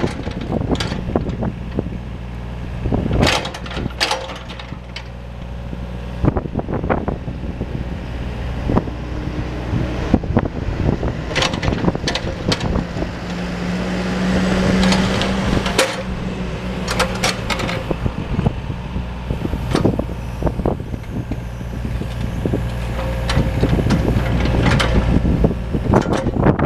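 John Deere 27D compact excavator's diesel engine running steadily while the hydraulics work the boom, arm and bucket, with repeated sharp clanks and knocks from the working gear. The engine note rises briefly about halfway through.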